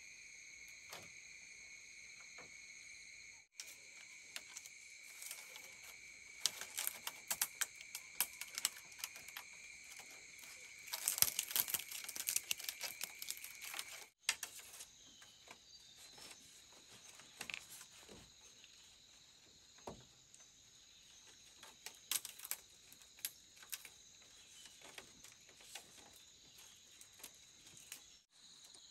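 Crickets chirring steadily, with scattered crackles and rustles of something being handled over them, thickest a little before the middle. The chirring breaks off for an instant three times, at the video's cuts.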